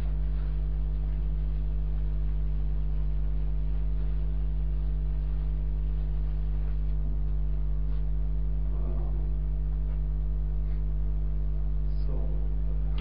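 Steady electrical mains hum with a stack of even overtones. Now and then comes a faint swish of a blackboard eraser wiping the board.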